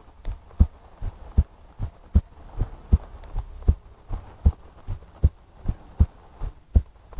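A woman's heartbeat heard close up: a steady lub-dub double beat, the first thud of each pair the stronger, about 78 beats a minute.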